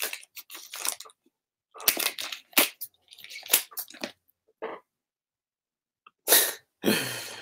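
Scissors cutting and slitting the packing tape on a wooden box: a series of short rasping cuts with pauses between them.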